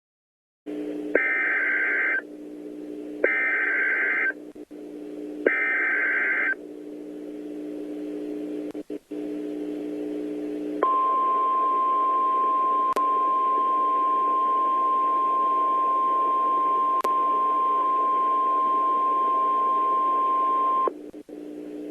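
Emergency Alert System signal as sent over NOAA Weather Radio: three short screeching data bursts, each about a second long, then after a pause a single steady alert tone held for about ten seconds, all over a low radio hum.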